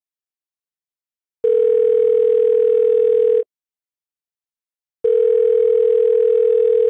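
Telephone ringback tone: two long, steady rings of about two seconds each, with a short silent pause between, as a call rings out waiting to be answered.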